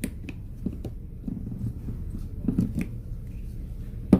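Small clicks and knocks of AA batteries being fitted into a plastic hair and beard trimmer and the parts handled, with one sharp snap near the end, over a steady low hum.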